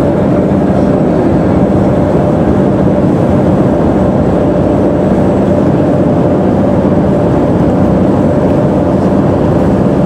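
A boat's engine running steadily, heard from on board: a constant low drone with a steady hum and no break.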